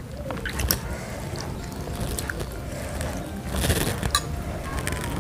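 Close-miked eating sounds of chicken noodles and meatball: chewing, with a few sharp clicks of a metal fork and spoon against the plate.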